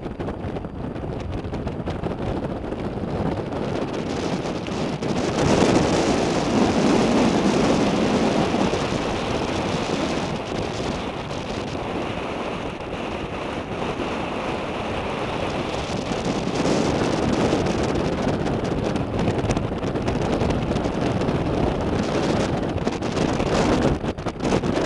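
Strong wind buffeting the microphone in gusts, with a loud swell about five seconds in and another in the second half.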